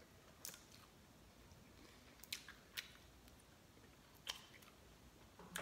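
Faint eating sounds from a bone-in chicken wing: a handful of short, scattered wet clicks and smacks of chewing and picking meat off the bone, over near silence.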